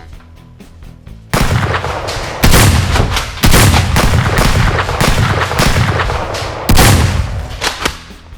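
Loud, sustained gunfire-like shooting that starts suddenly about a second in and runs for several seconds with a few heavier hits among it, over background music.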